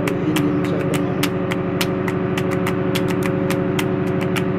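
Machinery on board a ship running with a steady hum and rapid, uneven ticking.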